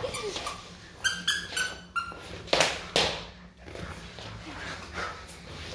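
French bulldog puppy biting a squeaky toy: a few short, high squeaks, mostly about one and two seconds in, mixed with scuffling and clicking as it scrambles on the floor and rug.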